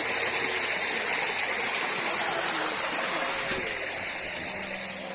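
Water rushing steadily out of a rock face, an even stream-like noise that eases off a little near the end.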